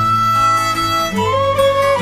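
Background instrumental music with a fiddle-like melody playing held notes.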